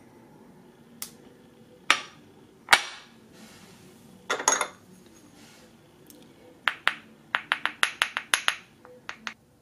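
Porcelain ink dishes and lids clinking and knocking as they are handled: a few separate knocks, then a quick run of about a dozen light taps near the end as an ink stick is tapped against a porcelain dish.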